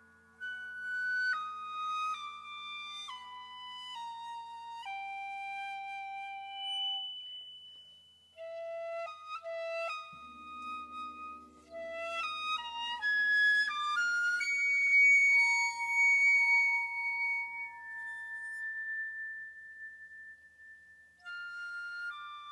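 Piccolo playing a slow falling line of held notes, then quicker notes and a long high held note. A low sustained percussion resonance comes in beneath it about ten seconds in.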